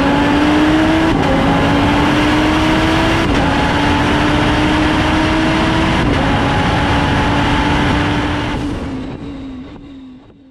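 Twin-turbo Lamborghini Huracán V10 accelerating hard along a straight, its engine note climbing steadily through the gears with three quick upshifts, about one, three and six seconds in. The sound fades out over the last two seconds.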